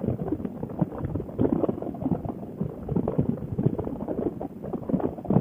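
Rubik's cube being turned fast by hand, a quick irregular run of plastic clicks and clacks over a low wind rumble.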